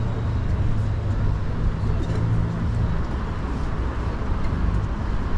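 Street traffic: a steady low engine hum and the rumble of cars on the road below.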